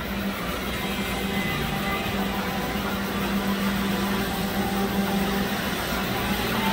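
Steady mechanical whirring and hum of a large model train layout's running trains and animation motors, with a low hum that comes and goes.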